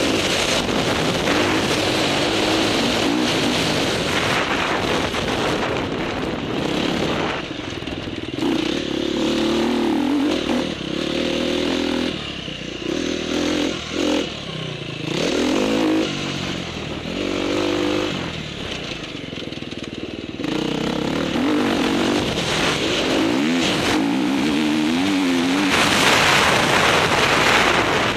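Dirt bike engine ridden hard on a dirt track, its pitch rising and falling as the rider works the throttle and shifts, with a few brief eases off the throttle. Wind and riding noise rush over the bike-mounted microphone, loudest near the end.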